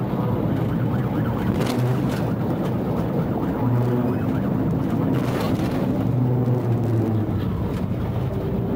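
Patrol car's engine and road noise at speed, heard inside the cruiser's cabin during a high-speed pursuit, with a couple of brief knocks.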